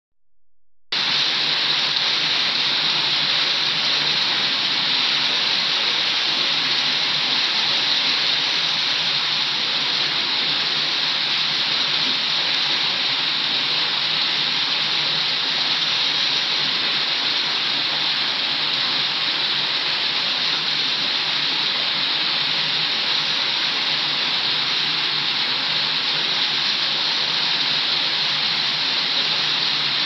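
Wall water fountain running: water pours from three wall spouts and nozzle jets into a basin with a steady splashing rush that starts about a second in.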